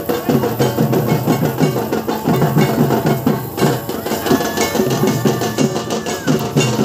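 Music with fast, dense drumming, with a held high note for about two seconds midway.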